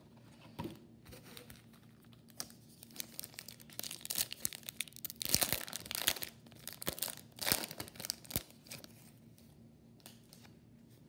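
A Topps Chrome trading-card pack wrapper being torn open and crinkled, in a run of crackling tears over several seconds, loudest about halfway through.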